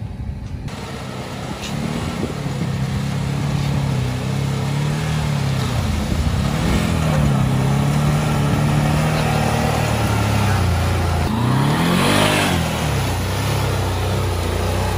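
A four-wheeler ATV engine revving up and down as the quad churns through deep water in a flooded bog, with a sharp burst of revs near the end as it climbs out.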